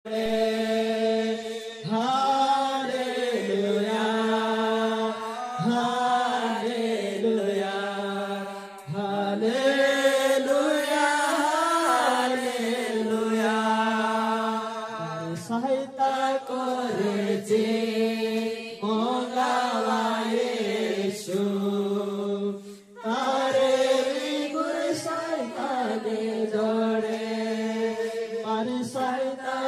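A small group of men and women singing a Christian worship song together in unison, a chant-like melody with long held notes and brief breaks between phrases.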